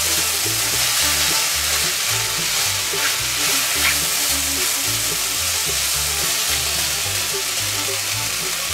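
Carrots, mushrooms, onion and cucumber sizzling as they fry in oil in a hot stainless steel pan, stirred with a plastic spatula that scrapes and ticks against the pan a couple of times.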